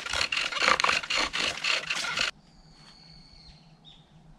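Bow drill in use: a wooden spindle grinding and squeaking in a wooden fireboard as the bow is sawed rapidly back and forth, a dense run of scraping strokes that stops abruptly about two seconds in. Faint bird calls follow.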